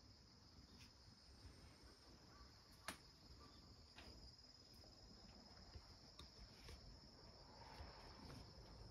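Near silence, with a faint, steady high-pitched insect chorus outside and a single soft click about three seconds in.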